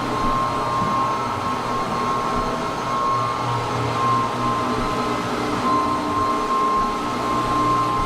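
Rotary floor buffer running steadily as it buffs stain into a sanded fir floor, a constant motor hum with a steady whine.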